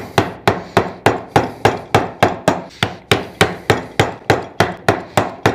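Wooden mallet striking a wood-carving chisel into a pine board in a steady run of sharp knocks, about four a second. This is stock removal, chopping the waste down to level.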